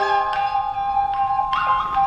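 Gamelan ensemble playing: kettle gongs and other struck instruments sounding notes one after another, each note ringing on and overlapping the next.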